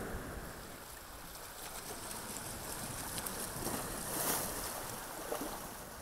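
Ocean surf washing over shoreline rocks, a steady rushing wash that swells to a louder breaking wave about four seconds in.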